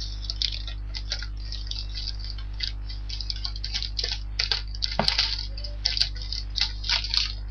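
A blue plastic mailer wrapped around a box is cut and torn open by hand, making irregular crinkles and clicks that grow busier in the second half. A steady low electrical hum runs underneath.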